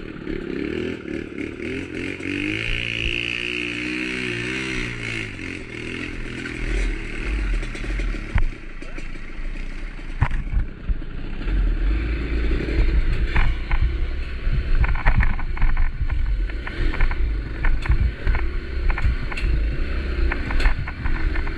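Motorcycle engine running under way, its pitch rising and falling about two to five seconds in, on a rough trail. Through the second half, frequent sharp knocks and rattles sound over a heavy low rumble.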